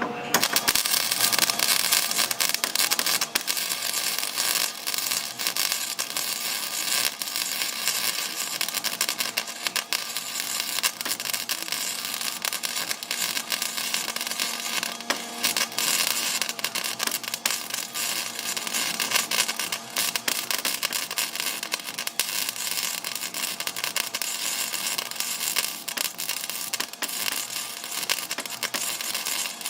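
MIG welding arc crackling and sputtering steadily as rebar is welded onto steel drag-bar teeth, starting about half a second in.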